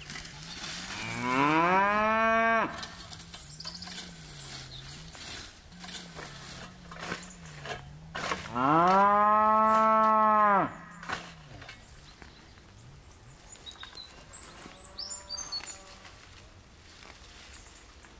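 A cow mooing: two long, loud moos that rise in pitch and then hold, and later a much fainter third one. Faint bird chirps and small clicks sit underneath.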